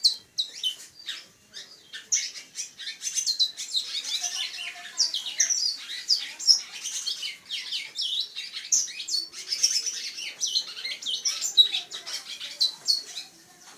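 A caged congo songbird singing: a fast, continuous string of high chirps, trills and short sweeping notes. It starts sparse and becomes a steady run after about two seconds.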